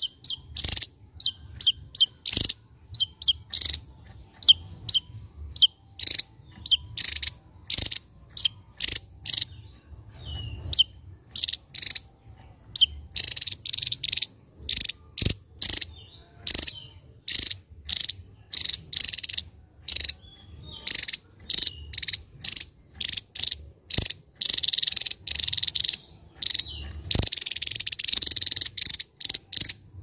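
A small caged songbird calling: a long run of sharp, high chirps, about one or two a second, some early ones with a short downward hook. In the last few seconds they run into a fast, buzzy, hissing chatter.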